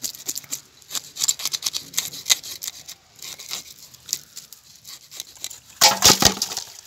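Knife scraping the scales off a whole tilapia, a quick run of short scraping strokes. About six seconds in, a louder thud and clatter as the scaled fish drop into an aluminium basin.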